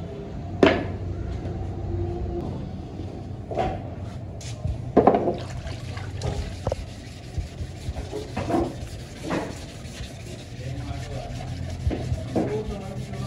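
Workshop handling of fibreglass helmet shells: several sharp hollow knocks as shells are handled. Towards the end there is running water and hands rubbing as a shell is washed down.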